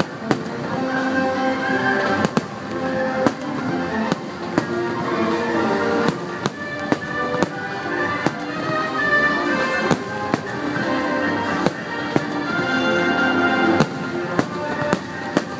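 Fireworks going off in a rapid, irregular series of sharp bangs over loud music.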